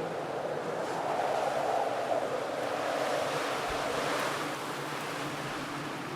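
Wind blowing, a steady rushing that swells about a second in and eases off in the second half.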